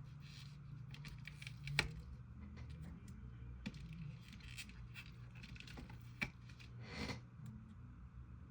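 Mallow slime being squished and stretched by hand, giving faint scattered clicks and small pops, with a sharper click about two seconds in and a short louder crackle near the end, over a low steady hum.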